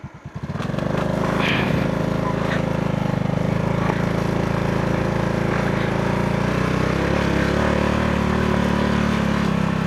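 Motorcycle engine of a tricycle idling with a slow, even putter, then revving up about half a second in and running steadily as the tricycle pulls away.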